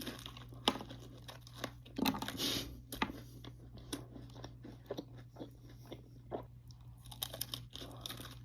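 Close-miked chewing and crunching of a Reese's peanut butter ice cream cone, with irregular crisp crackles of the cone between bites. A louder crunch comes about two seconds in.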